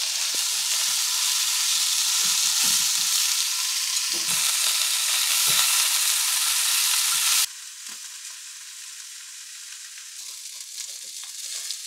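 Food frying with a steady sizzle, which drops abruptly to a fainter sizzle a little past halfway. A few soft knocks sound over it.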